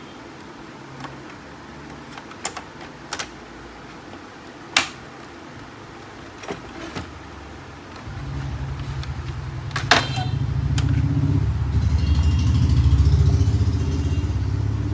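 A few sharp clicks and taps of small parts being handled. About eight seconds in, a low engine rumble begins and grows louder, peaking near the end: a motor vehicle passing close by.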